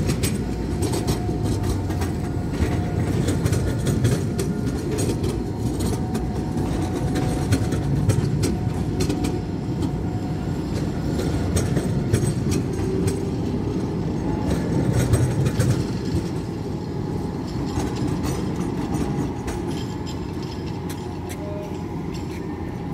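Tram running on its rails: a steady low rumble with many small clicks and rattles, easing slightly near the end.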